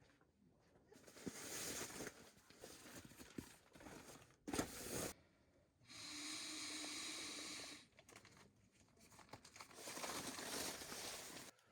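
Intermittent rustling and crinkling handling noise in several irregular bursts, with a steady hiss lasting about two seconds in the middle.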